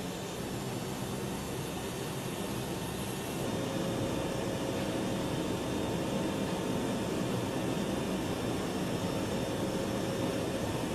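Steady hum and rush of an aircraft's engines and air flow, growing a little louder about three and a half seconds in.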